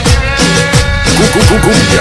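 Cumbia music, the sped-up 'cumbia alterada' style of a sonidero mix, with a steady beat and low notes that swoop down in pitch, several in quick succession about halfway through.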